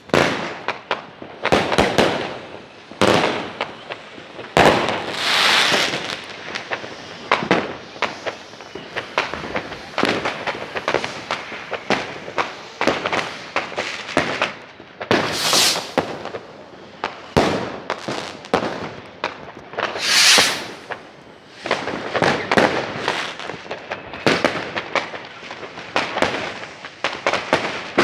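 Fireworks going off in quick, irregular succession: sharp bangs and crackles overlapping one another, with a few longer hissing, crackling bursts, about five, fifteen and twenty seconds in.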